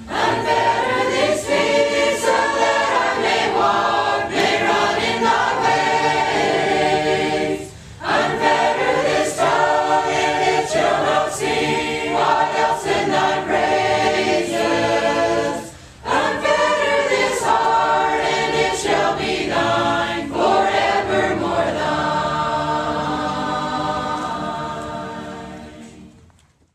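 Choir singing a hymn in long sung phrases, with two short breaks between phrases, fading out near the end.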